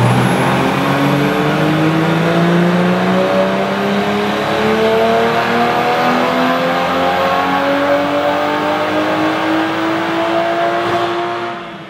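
Toyota GR Supra engine pulling under load on a hub dyno in fifth gear, a ramp test (dyno pull). Its pitch climbs steadily as the revs rise, then fades out near the end.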